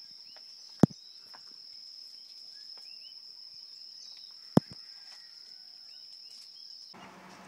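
Steady high-pitched insect drone of crickets, with scattered short chirps over it and two sharp loud clicks, one about a second in and one about halfway through. The drone cuts off suddenly near the end.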